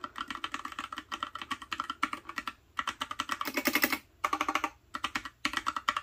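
Rapid typing on the Freewrite smart typewriter's mechanical keyboard: quick runs of key clicks broken by a few short pauses.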